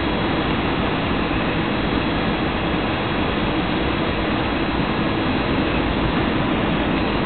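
Steady cabin noise of an Airbus A320 on short final just above the runway: engines running and air rushing past the fuselage, heard from inside the passenger cabin.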